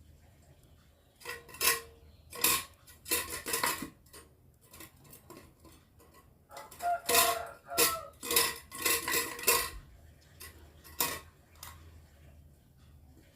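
Irregular clinking and clattering of hard objects, in clusters: several knocks in the first four seconds, a longer run of rapid clanks from about six and a half to ten seconds, and a couple of single knocks near the end. Some of the clanks ring briefly.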